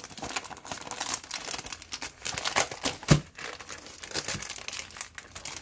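Clear plastic packaging sleeve crinkling as it is handled and peeled back from a sticker book, with one sharp knock about halfway through.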